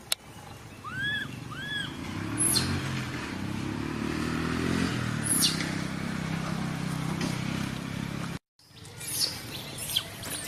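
A motor runs steadily underneath, with two short rising-and-falling calls about a second in and several sharp, high chirps that fall in pitch. The sound cuts out abruptly for a moment near the end.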